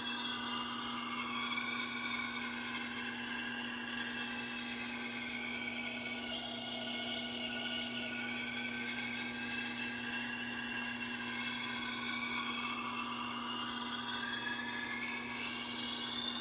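Sharpening stone drawn slowly along the edge of a high-carbon German steel santoku clamped in a sharpening jig. Each long stroke rings with a pitch that sweeps up and down as the contact moves along the blade. A steady low hum runs underneath.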